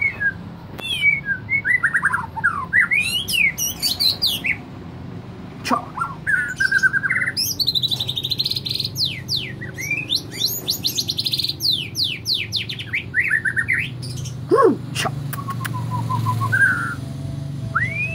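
White-rumped shama (murai batu) singing a long, varied song of whistled glides and rapid trills, delivering canary-like phrases in mimicry of a canary's song.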